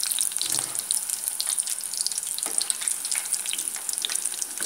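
Rice fritters deep-frying in hot oil in a small aluminium pot over medium heat: steady, dense sizzling and crackling from fritters that have loosened from the pot and are ready to turn. A couple of soft knocks come from a slotted metal spoon moving in the pot.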